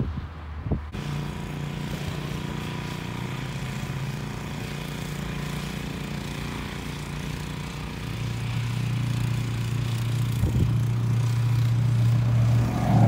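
Walk-behind gasoline snowblower engine running steadily while clearing snow, growing louder from about eight seconds in. Wind on the microphone is heard briefly at the start.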